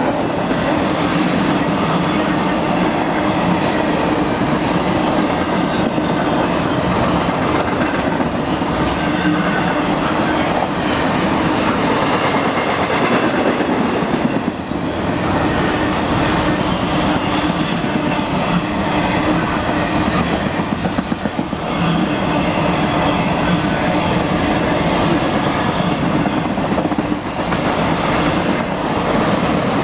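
Double-stack container freight train rolling past, the steady wheel-on-rail noise of its well cars, with a few brief dips in loudness along the way.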